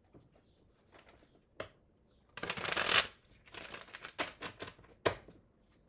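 A deck of tarot cards shuffled by hand: a short burst of riffling about halfway through, then a patter of card clicks and a sharp tap near the end.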